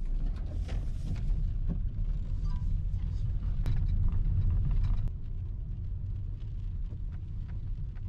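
Steady low rumble of a car driving, heard from inside the cabin: engine and tyre noise on a wet road, with a few faint ticks over it. The level drops a step about five seconds in.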